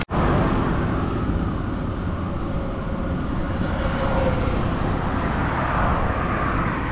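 Steady road traffic noise, with a passing vehicle's engine hum standing out faintly around the middle.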